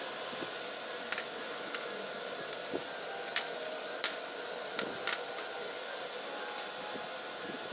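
Sharp plastic clicks and knocks from a camera tripod's head and mount being handled and fitted, about ten of them at uneven intervals, the loudest a little after three and four seconds in. Under them runs a steady whirring hiss.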